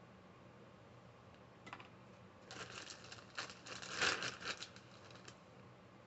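Plastic bag crinkling and rustling as hands rummage through it for the next toy. A short rustle comes just under two seconds in, then about three seconds of crinkling, loudest in the middle.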